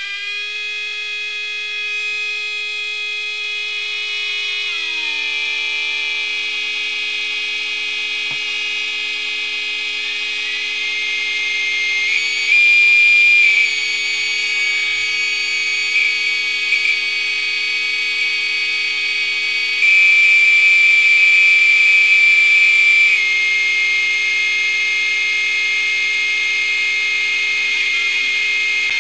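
Homemade CD40106 Schmitt-trigger oscillator synth playing through a small amplifier and speaker: several square-wave oscillators mixed into a dense drone of steady tones, their pitches shifted as the pots are turned. A lower tone drops in pitch about five seconds in. A loud high tone cuts in for about a second around twelve seconds in, and again for about three seconds after the twenty-second mark.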